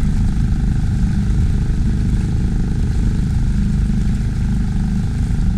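Small outboard motor running steadily under way, driving an inflatable boat, with a heavy low rumble.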